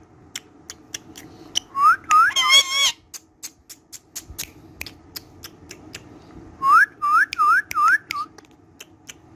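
Indian ringneck parakeet whistling: a run of short rising whistles with a warbling stretch after them, then five rising whistles near the end, with sharp clicks in between.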